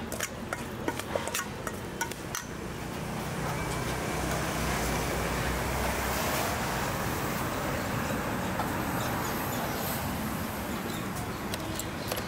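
A metal spoon clinking sharply against a stainless steel bowl several times in the first couple of seconds, then steady street traffic noise that grows louder from about three seconds in.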